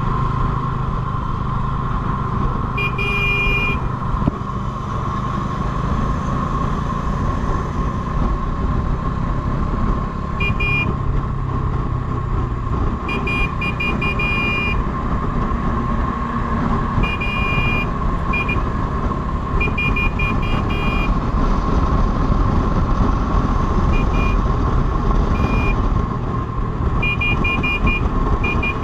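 Motorcycle running at highway speed, with steady engine, wind and road noise. Several times it is broken by short bursts of rapid, high-pitched electronic beeping.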